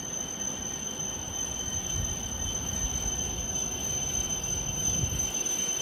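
Hokuriku Shinkansen W7 series bullet train pulling slowly into the platform: a low rumble that grows slightly louder as it nears, with a steady high-pitched whine above it.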